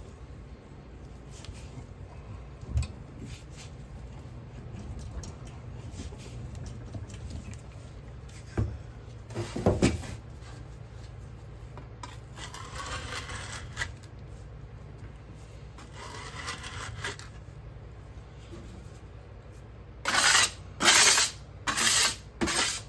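Petrobond molding sand being packed and scraped in a casting flask: rubbing and scraping with a few soft knocks, then a quick run of loud short scrapes near the end.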